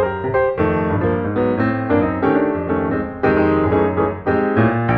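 Background piano music: a quick, busy run of notes over low bass notes.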